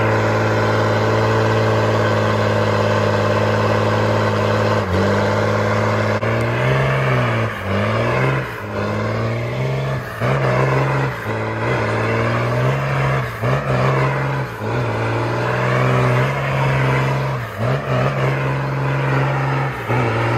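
Straight-piped 12-valve Cummins inline-six diesel in a school bus, running loud at steady high revs for about five seconds, then revving up and down repeatedly as the bus works through soft, rutted dirt.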